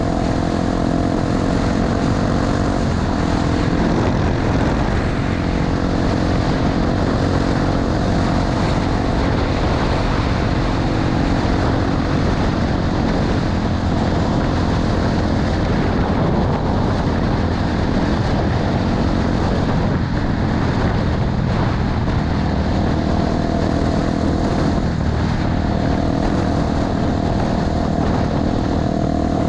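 Honda XR250 Tornado's single-cylinder four-stroke engine running steadily under way on a gravel road, with a constant rush of wind and road noise over it.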